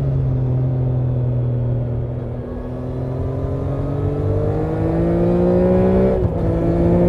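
2024 Triumph Trident 660's inline three-cylinder engine and exhaust under way. The note holds steady for the first couple of seconds, then rises in pitch as the bike accelerates. About six seconds in there is a brief break and a small drop in pitch, an upshift, and then the note climbs again.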